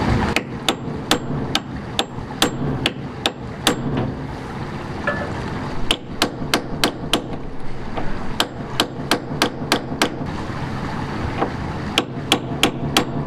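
A hammer striking a steel punch set against a sailboat's rubber-and-bronze cutlass bearing, in repeated sharp metal blows, two or three a second, in several runs with short pauses. The punch is being driven in to fold the sawn bearing inward so it can be pulled out of the stern tube.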